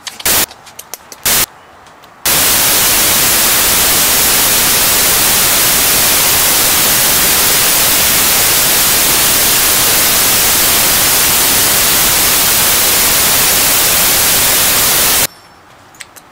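Loud white-noise static: a few short bursts in the first two seconds, then a steady full hiss that cuts off suddenly about a second before the end.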